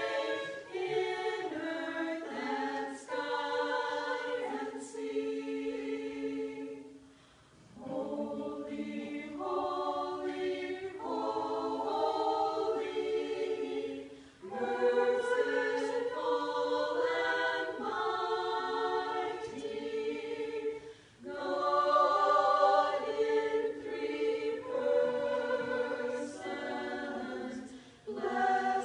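Small women's vocal group of six singing together, in sung phrases of about six or seven seconds each with short breaks between them.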